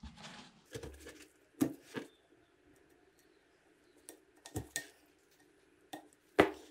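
Scattered small metal clicks and taps from handling a BMW N52 camshaft as its old metal VANOS sealing ring is worked off with a pick. The loudest knock comes near the end.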